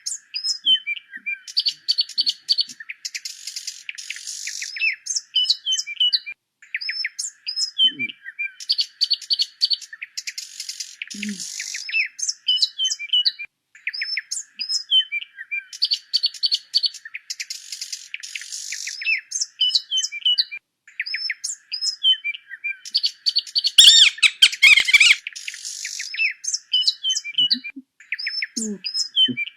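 Small songbirds chirping and singing in quick, repeated high phrases, with a louder flurry of calls late on.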